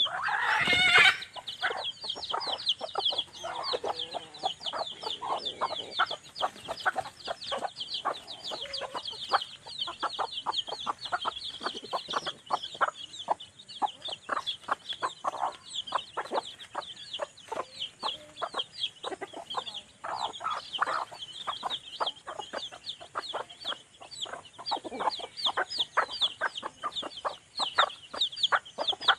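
Chickens in a yard: chicks peeping in a constant stream of quick, high, falling notes, with a hen clucking in short lower notes throughout. A brief loud rising squawk comes right at the start.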